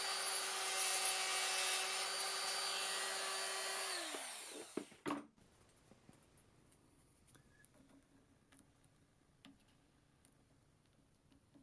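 Small power tool running steadily at speed, then switched off about four seconds in, its pitch falling as it spins down. A couple of knocks follow, then only faint small clicks.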